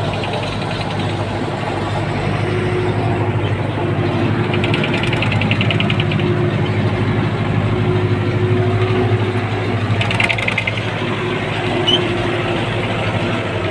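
MTZ-892.2 tractor's diesel engine running steadily under load in low gear while towing a heavy K-700 tractor. A rapid rattle comes in twice, around a third of the way in and again about three quarters through.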